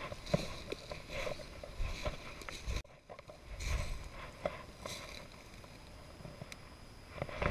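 Footsteps crunching through dry fallen leaves and grass, with brush scraping past. The noise stops for a moment about three seconds in, then carries on.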